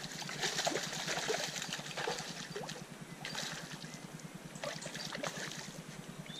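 Water splashing and sloshing in irregular bursts as a hooked salmon thrashes at the river's surface while being played on the rod.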